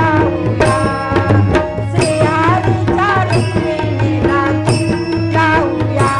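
Instrumental interlude of a Marathi devotional bhajan: an electronic keyboard plays a sustained melody over tabla and pakhawaj drumming in a steady rhythm.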